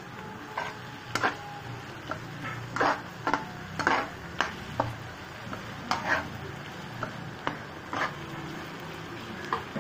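Onions frying in ghee in a steel pot, stirred with a spatula: irregular scrapes and knocks against the pot, about a dozen of them, over a steady frying sizzle.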